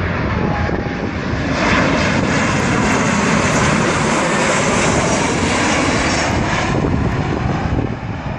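Boeing 737 twin-jet airliner passing low overhead on landing approach, its engine noise swelling about a second and a half in and easing off near the end.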